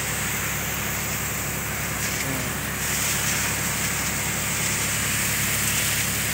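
Tractor-driven crop spray machine running: a steady engine hum under the hiss of a high-pressure jet of spray from the spray gun.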